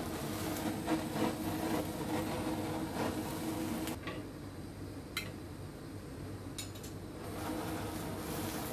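Butane kitchen torch hissing steadily as it sears glazed pork steaks. It cuts out about four seconds in, a few sharp clicks follow, and the hiss starts again near the end.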